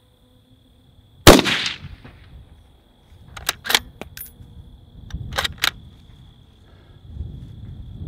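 A single shot from a .308 Ruger Precision Rifle fitted with a muzzle brake, about a second in, the report ringing out briefly. A couple of seconds later come short metallic clicks in two pairs as the bolt is lifted and drawn back to eject the spent case, then pushed forward and locked.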